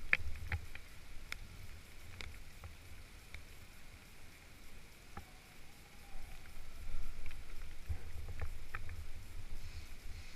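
Low rumble of wind and handling on the microphone, with scattered faint clicks and taps, a few close together near the end.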